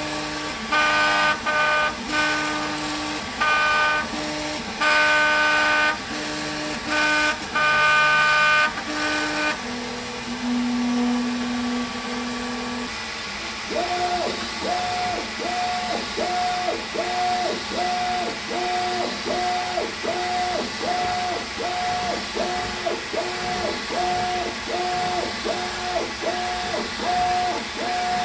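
3D printer's stepper motors whining at pitches that jump from move to move for about the first ten seconds, then holding one lower tone for a few seconds. From about a third of the way in, the toolhead zigzags across the bed laying down a rectangular first layer, and the whine repeats evenly about once every 0.8 s with each pass.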